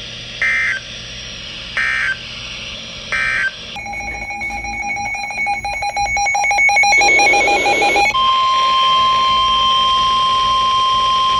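NOAA Weather Radio alert signalling: three short data-burst screeches about a second apart, the end-of-message code of the previous warning. Then a rapidly pulsing electronic alert beep for about four seconds, and from about eight seconds in the steady 1050 Hz warning alarm tone that opens the next severe thunderstorm warning.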